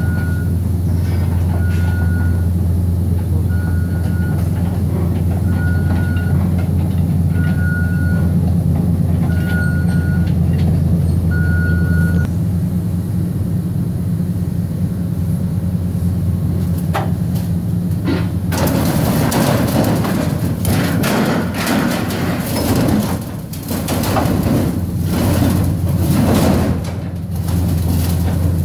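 Engine of a Cat grapple excavator running steadily, with a backup alarm beeping about once every two seconds until roughly twelve seconds in. From about eighteen seconds in, metal irrigation pipes clatter and rattle against one another and the trailer as the grapple grabs and lifts them.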